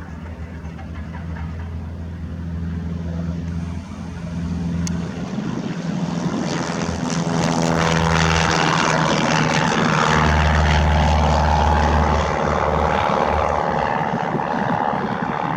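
Propeller airplane engine, its even hum growing steadily louder over the first half and then holding loud.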